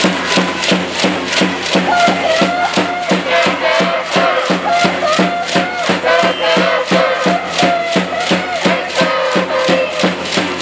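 A cheering section beating a drum in a steady rhythm of about three beats a second, with a group of voices chanting or singing along.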